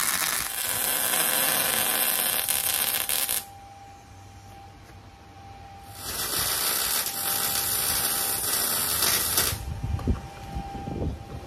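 Wire-feed (MIG) welder arc crackling steadily as a bead is laid on steel tubing: two welds of about three and a half seconds each, separated by a short pause. A few low knocks follow near the end.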